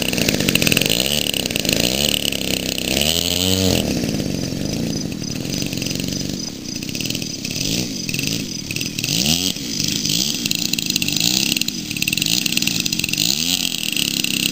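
The small propeller engine of a radio-controlled model autogyro running, its pitch rising and falling again and again as the throttle is worked while it rolls across the grass.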